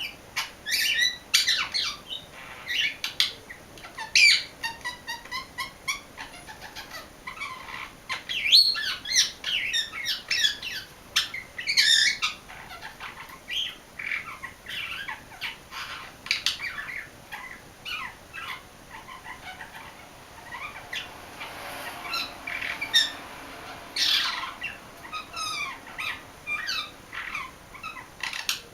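English budgie singing a long, continuous chatter of quick chirps, warbles and squawks, working in calls that imitate an Indian ringneck parakeet.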